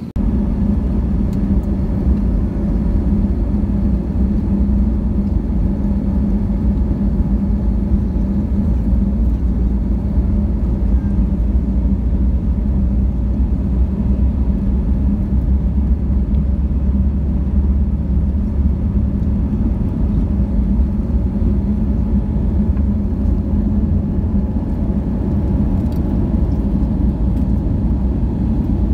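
Airliner takeoff roll heard from the cabin over the wing: the Airbus A320neo's Pratt & Whitney geared turbofans at takeoff thrust, with runway rumble, giving a loud steady rumble and hum. The level comes up abruptly at the very start.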